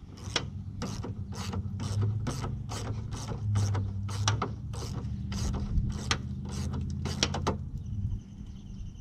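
Hand ratchet clicking as a headlight mounting bolt is turned, about three clicks a second, stopping near the end, over a steady low hum.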